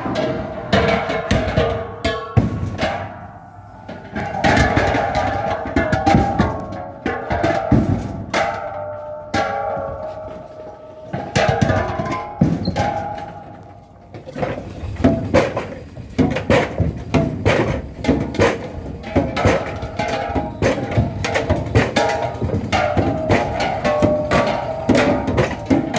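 Steel LPG gas cylinders clanking against one another and the truck bed as they are handled, many irregular metallic knocks with a ringing tone after them.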